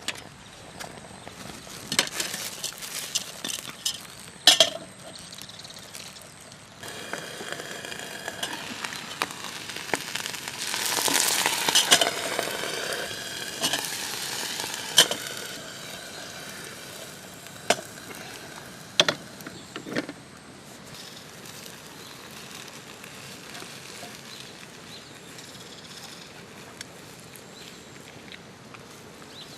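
Food sizzling in a pan over a fire, the sizzle swelling about a third of the way in and then dying down, with a few sharp knocks and clinks along the way.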